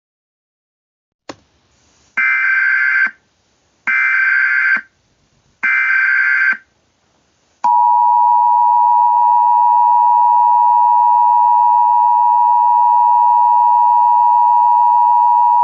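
Emergency Alert System signal: after a click, three harsh digital SAME header data bursts, each just under a second long, then, from about halfway through, the long steady two-tone EAS attention signal (853 and 960 Hz) that announces an alert message.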